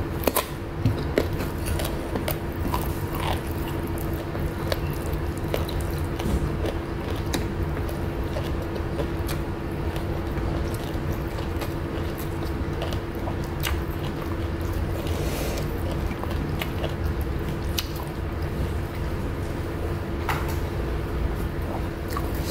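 Close-up chewing of a raw round green eggplant, with wet mouth sounds and scattered sharp clicks, over a steady low background hum.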